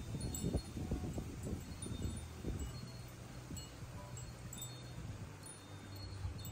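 Wind chime tinkling in the breeze: scattered short, high pings over a steady low wind rumble.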